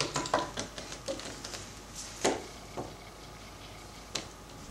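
Small plastic Littlest Pet Shop figures and a toy trophy cup being handled and set down: a few light clicks and taps, with one louder tap a little past two seconds in.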